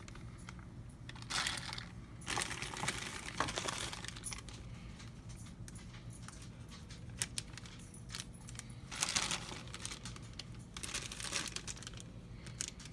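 Sealed plastic bags holding kids' meal toys crinkling as they are handled and held up, in several short bouts with small ticks between, over a faint steady low hum.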